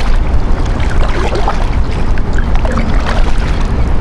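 Kayak paddle blades dipping and splashing in choppy sea, under heavy wind buffeting on the microphone.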